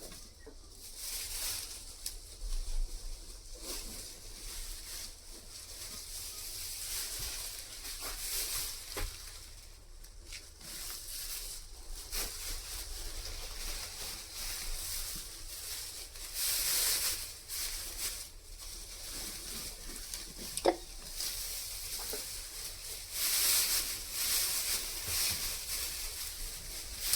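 Dry paddy straw rustling and crackling in uneven bursts, with scattered small clicks and one short squeak about twenty seconds in.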